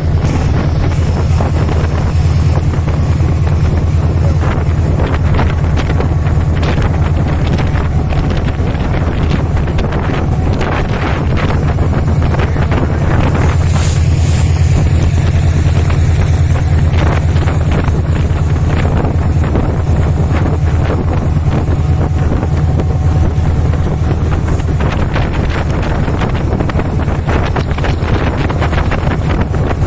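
Meter-gauge passenger train running through a station at speed without stopping: a steady, loud low rumble with many short clacks of wheels over the track.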